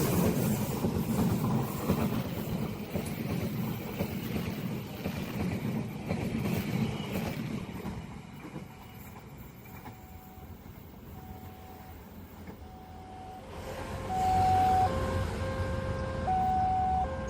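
A train running past with a broad rumble that fades away over the first half. Then a railway level-crossing warning alarm sounds, switching back and forth between a higher and a lower note, faint at first and much louder about fourteen seconds in.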